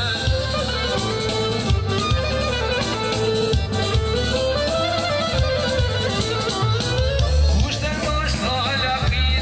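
Live band playing Albanian wedding dance music: a melodic instrumental line over a steady beat.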